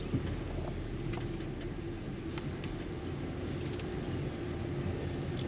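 Steady low rumble of a car driving slowly on a paved road, heard from inside the cabin, with a faint steady hum and a few light clicks.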